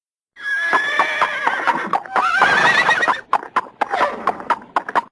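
Animal chattering sound effect: a high, wavering, whinny-like call with a rising glide, breaking about three seconds in into rapid stuttering chatter that stops abruptly.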